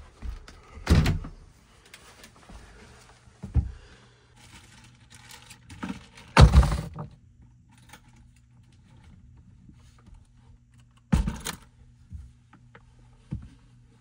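Handling thuds as a door is opened and a tool bag is moved about: five heavy thunks and knocks, the loudest about six and a half seconds in. A low steady hum sits underneath from about four seconds in.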